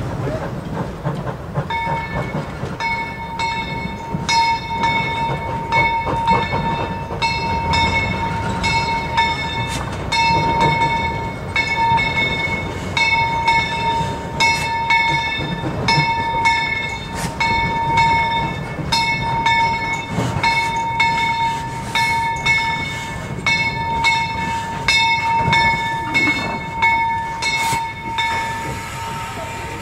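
Narrow-gauge steam train on the move, a low rumble under a ringing tone that is struck again and again at a steady pace. The ringing starts about two seconds in and stops just before the end.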